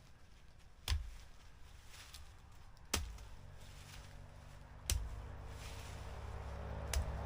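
Four sharp knocks, evenly spaced about two seconds apart, with a low steady hum coming in about halfway through.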